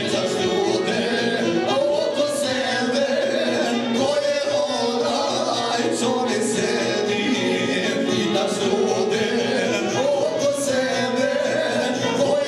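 Two men singing together into microphones, their voices amplified with long held notes.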